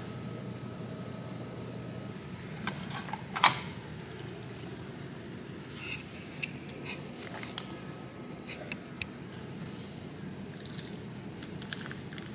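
Steady indoor room hum with scattered small clicks and rattles from things being handled, the loudest a sharp click about three and a half seconds in.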